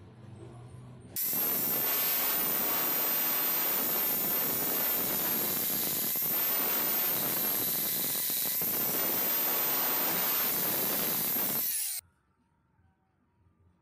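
Power tool with an abrasive wheel grinding against the metal of an electric motor armature, with a harsh grinding noise and a thin high whine. It starts abruptly about a second in and cuts off abruptly near the end.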